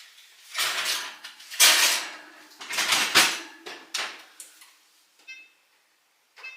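A baking pan clattering and scraping as it goes back into the oven, with the oven door shutting: a few loud knocks and scrapes in the first four seconds. Near the end come short electronic keypad beeps as a timer is set.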